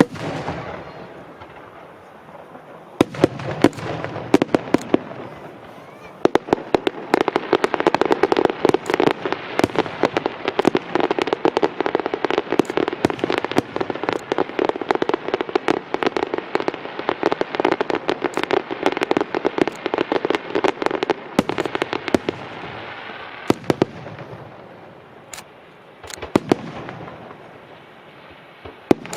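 Aerial fireworks display: sharp shell bursts and dense, rapid crackling that builds a few seconds in, stays thick for about fifteen seconds, then thins to scattered pops near the end.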